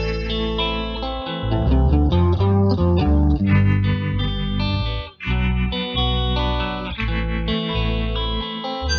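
Background music: electric guitar over a steady bass, with a brief break about five seconds in.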